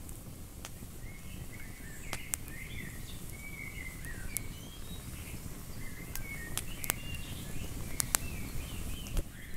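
Wood campfire crackling, with sharp pops scattered through, over a low steady rumble. A bird sings short warbling phrases from about a second in.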